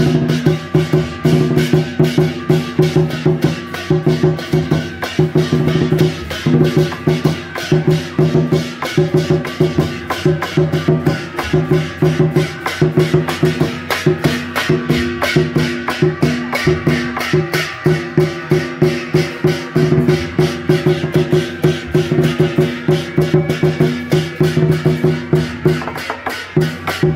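Beiguan procession music: drums, gongs and cymbals beating a fast, steady rhythm over sustained ringing tones, accompanying a god-general troupe.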